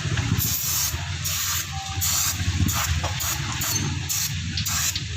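Hissing spray let off in short repeated blasts during scooter maintenance, from a cleaner spray or a compressed-air nozzle, over a steady low hum.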